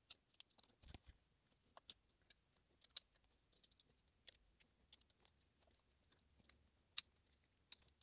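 Near silence with scattered faint metallic clicks, the sharpest about three seconds in and again near seven seconds, as nuts are threaded hand-tight onto the stud bolts of a Valvetronic bracket.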